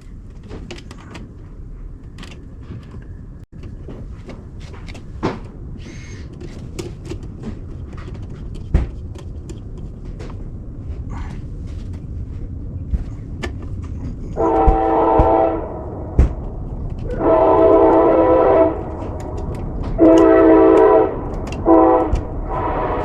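Locomotive air horn sounding the grade-crossing signal, two long blasts, a short one and a long one, each a chord of several steady tones. Beneath it the low rumble of an approaching train grows louder, with scattered clicks and knocks.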